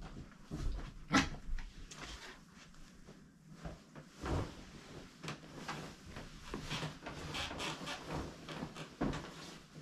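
Bed sheets being handled: fabric rustling and swishing as a fitted sheet is tucked in and a flat sheet is shaken out, with scattered bumps and knocks against the bed, the sharpest about a second in.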